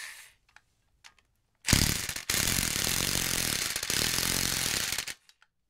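Harbor Freight impact wrench hammering on a flywheel bolt of a GM Ecotec engine, breaking the bolts loose. The tail of one run dies away at the start, and about a second and a half later the wrench fires again: a short burst, then about three seconds of rapid steady hammering that stops suddenly.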